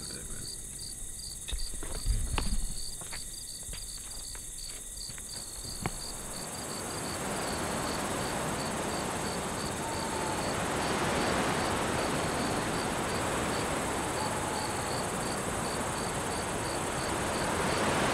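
Crickets chirping in a steady, even rhythm of about two to three chirps a second. A few sharp knocks come in the first six seconds, and from about six seconds in a steady rushing noise swells up beneath the chirping and holds.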